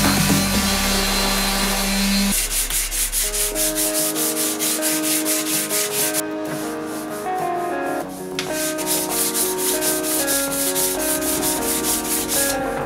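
A random orbital sander runs over body filler on a steel body panel and stops about two seconds in. Then a hand sanding block is rubbed back and forth over the filler in quick, even strokes, about five a second, with a short pause midway.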